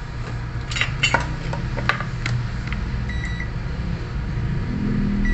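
Multimeter continuity beeper sounding as the probes are held on a graphics card's MOSFET: a short beep about three seconds in, then a steady beep starting at the very end, the sign that the MOSFET is shorted. Before the beeps come a few sharp clicks of the probes, over a constant low hum.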